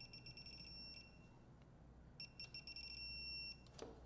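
Ratchet wrench clicking fast and faintly in two runs, as the chaincase cover fasteners are run back in.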